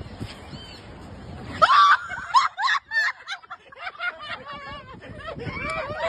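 A steady outdoor rushing noise, then, about one and a half seconds in, loud bursts of high-pitched laughter and shrieking that come in fits and carry on to the end.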